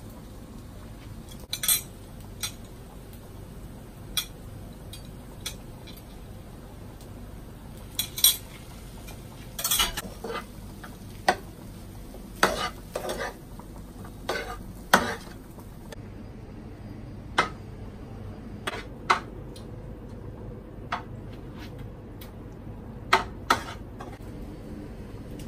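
Metal spoon knocking and scraping in a frying pan of fried rice, and forks clinking against a plate: irregular sharp clanks, a few of them louder, over a low steady background.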